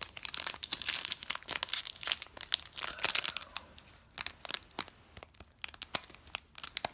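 Trading card pack wrapper crinkling and tearing as it is ripped open by hand, a dense run of crackles for the first few seconds, thinning to scattered crinkles later.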